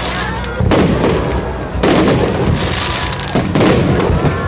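Fireworks going off: three loud bursts about a second apart, each followed by a crackle that carries on between them.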